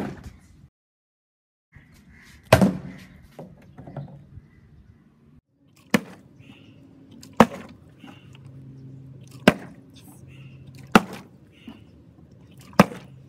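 Partly filled plastic water bottle being flipped and hitting a tiled floor again and again: six sharp thuds, roughly one and a half to two seconds apart.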